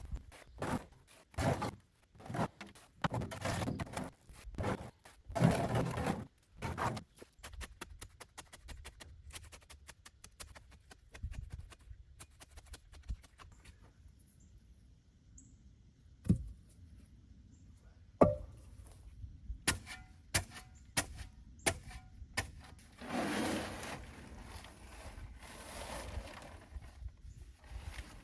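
Irregular knocks, thuds and scrapes as flooring pieces are handled, slid and tapped into place. There are sharp single knocks in the middle stretch and a longer scrape near the end.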